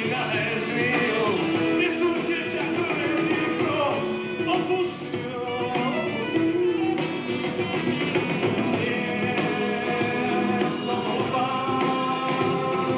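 Live rock band playing: electric guitar, bass guitar and drums, with a saxophone melody on top.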